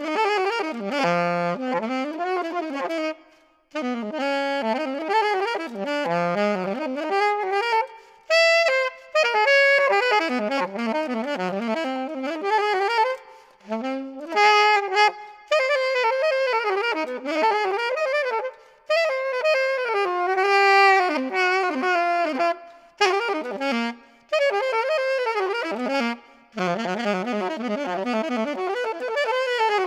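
Solo alto saxophone improvising free jazz. It plays phrases of quick, leaping notes with pitch bends, separated by short pauses.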